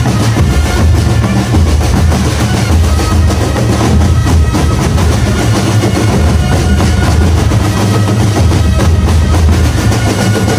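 Indonesian marching drum band playing: bass drums and snare drums beat fast and densely, with rolls, under a sustained melody line.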